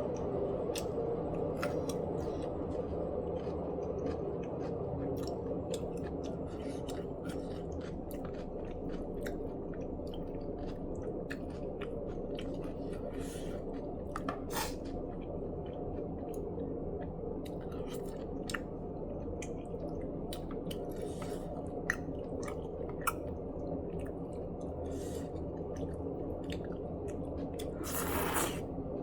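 A person chewing mouthfuls of Korean braised chicken (jjimdak) close to the microphone, with many small clicks throughout, over a steady low hum. A brief louder rush comes near the end.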